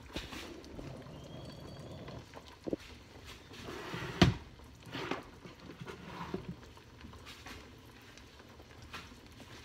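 Kitchen handling noises: scattered knocks and clatters as things are moved about on the counter by the stove, the loudest a sharp knock about four seconds in.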